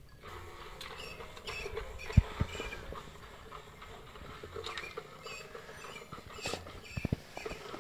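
A cat pawing and batting at a white plastic electronic teaser toy: light scratchy taps and scrapes of paws and claws on the plastic. There are a few sharper knocks about two seconds in and around seven seconds in.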